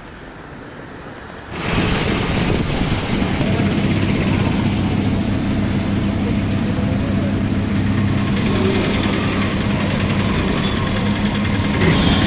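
Lamborghini Huracán's V10 engine idling steadily, a deep even engine sound that starts suddenly about a second and a half in over street traffic.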